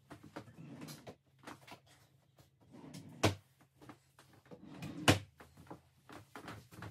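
Rustling and knocking of things being handled and moved, with two sharp loud knocks about two seconds apart.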